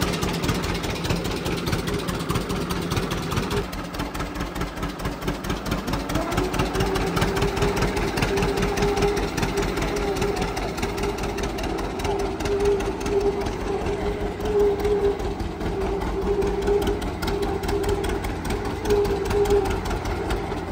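An engine running steadily, its pitch rising about six seconds in as it speeds up, then holding.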